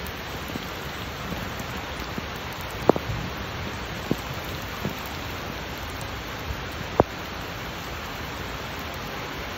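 Heavy rain falling steadily, an even hiss, with a few sharp taps standing out above it, the loudest about three seconds and seven seconds in.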